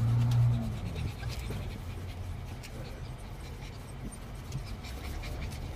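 Saint Bernard puppies panting in a wire crate over the steady low rumble of a moving car. A low drawn-out tone fades out within the first second.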